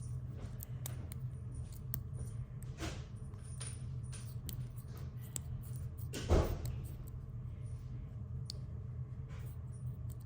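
Small cuticle scissors snipping slide tape around a fidget slider: a run of faint, irregular clicks and snips. There is one louder bump about six seconds in, over a steady low hum.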